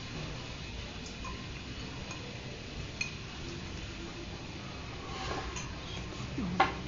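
Light clinks of cutlery and dishes during a meal over a steady low room hum, with one sharper click near the end.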